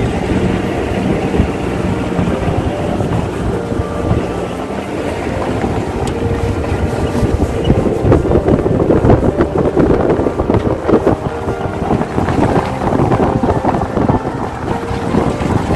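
Maruti Gypsy safari jeep driving, its engine running, with wind buffeting the microphone; the buffeting is heaviest from about eight to twelve seconds in.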